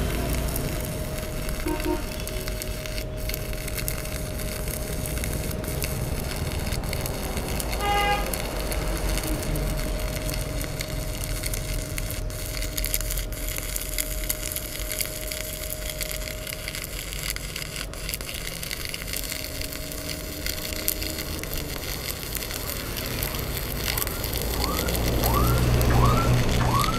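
Stick-welding arc from a Marula MMA 200 mini inverter welder burning a 3.2 mm electrode along a steel plate. The arc runs steadily without breaking.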